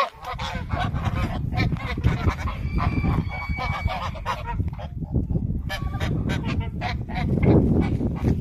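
Domestic geese honking, many short calls one after another with a brief lull about five seconds in.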